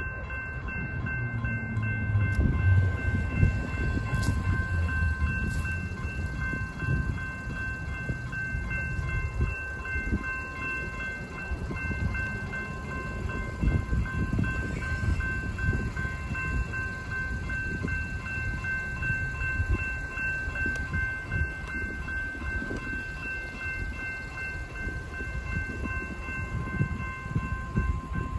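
Railroad crossing warning bells ringing steadily, starting the moment the flashing signals activate, over a continuous low rumble.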